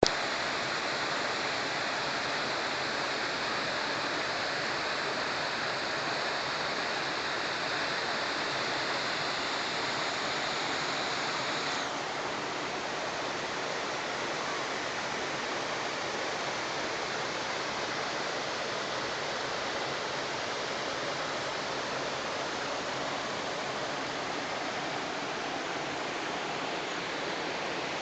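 Small mountain waterfall pouring into a pool and stream water rushing over rocks, a steady rush of water. It turns slightly softer and duller about twelve seconds in.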